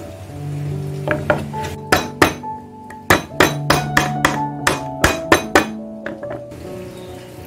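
A stone pestle knocking on a wooden cutting board as lemongrass stalks are pounded to bruise them. There are about a dozen sharp knocks, a few scattered at first and then a quick run of about three a second, over background music.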